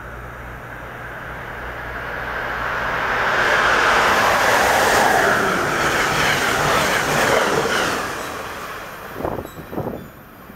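Amtrak electric passenger train with Amfleet coaches passing at speed without stopping: a rush of wheels and air that swells, peaks about four to seven seconds in, then fades. Near the end, a few short gusts of its wake buffet the microphone.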